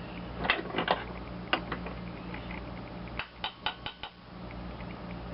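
Light metallic clicks and clinks of small tools and metal parts being handled at a workbench, three near the start, one alone, then a quick run of five, over a steady low hum that drops out for about a second in the middle.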